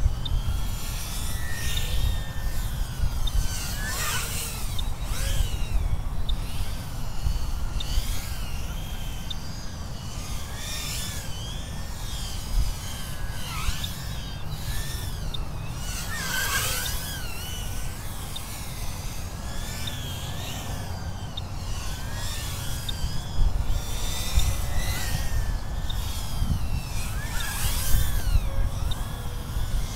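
Mobula 8 micro FPV drone's motors whining in flight over rushing wind noise, the pitch rising and falling constantly with the throttle. The whine swoops down and back up sharply about four, sixteen and twenty-eight seconds in.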